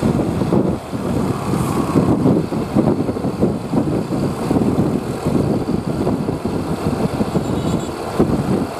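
Road vehicle engine running, with an uneven, fluctuating noise and no horn.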